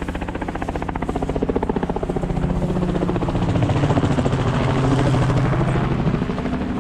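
A rapid, evenly pulsing engine drone that swells to its loudest about four seconds in, drops in pitch, and eases off near the end.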